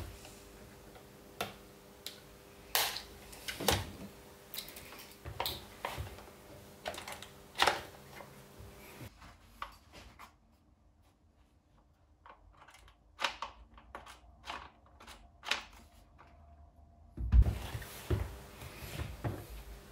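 Scattered clicks, taps and knocks of a cordless chainsaw's plastic housing being handled and turned over on a wooden tabletop, with a heavier thump about three-quarters of the way through.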